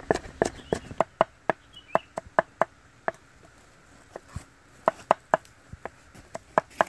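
Cleaver mincing garlic on a wooden chopping block: sharp knocks of the blade on the wood, several a second, easing off briefly midway and then picking up again.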